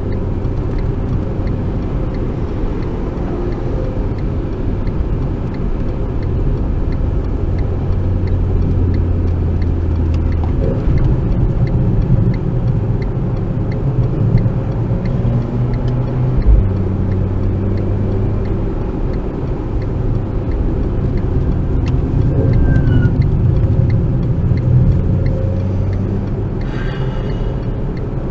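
Renault Clio RS 1.6-litre turbo four-cylinder engine running on track, heard inside the cabin with road and tyre noise, its engine note rising and falling as it accelerates and shifts.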